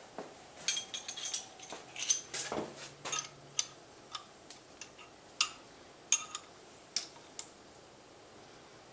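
Steel combination wrench clinking on the jam nuts of a cylinder stud as the stud is tightened into the engine crankcase: a run of irregular sharp metal clicks, thick at first and then spaced out, stopping about seven and a half seconds in.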